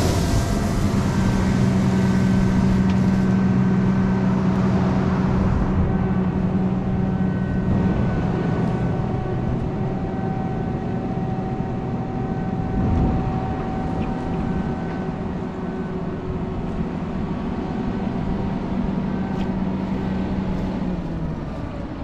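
John Deere 9500 combine's six-cylinder turbo-diesel running at a steady working speed, a constant engine hum that grows slowly quieter.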